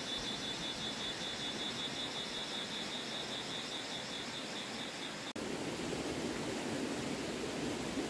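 An insect chirring in rapid, even high-pitched pulses over a steady hiss, cutting off abruptly about five seconds in. A steady rushing noise follows.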